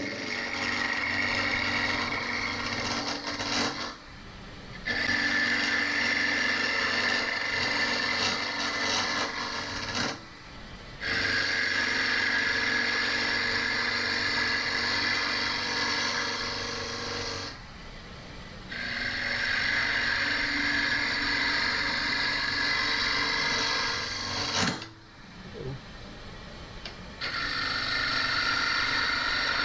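Wood lathe turning a padauk knob blank, a turning tool scraping across the spinning wood over a steady motor hum. The cutting comes in five long stretches broken by short pauses.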